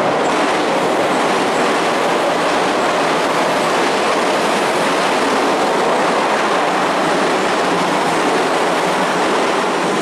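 An electric train passing over the tracks above, heard from the pedestrian underpass beneath them. It makes a loud, steady rush of wheels on rails that starts abruptly and falls away at the end.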